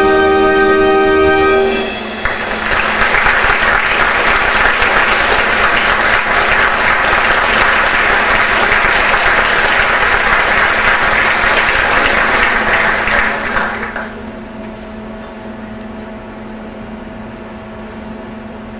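A pit orchestra's held final chord cuts off and an audience applauds for about twelve seconds, then the clapping dies away, leaving a steady low hum.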